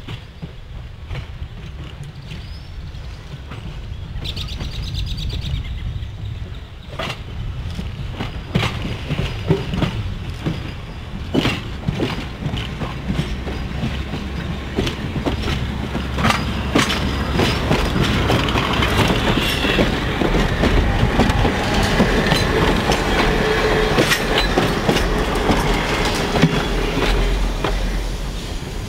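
Electric interurban train (Chicago, Aurora & Elgin car 309, two cars) rolling past, its wheels clicking over rail joints and switches. It grows louder as it nears, stays loud for several seconds as it passes, and fades slightly near the end.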